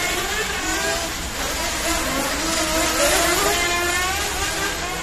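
Electric RC touring cars running, their motors whining and rising and falling in pitch again and again as they accelerate and slow.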